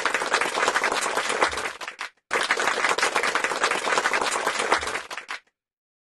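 Applause, many hands clapping, in two stretches with a short break just after two seconds in, cutting off suddenly about five and a half seconds in.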